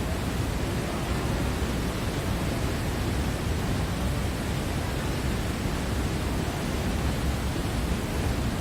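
Steady, even rushing noise with no distinct events, heaviest in the low end.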